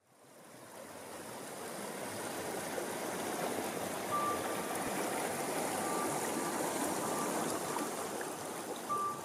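Creek water rushing over rocks, fading in over the first couple of seconds and then holding steady. A thin, steady high tone comes in about four seconds in and sounds on and off over the water.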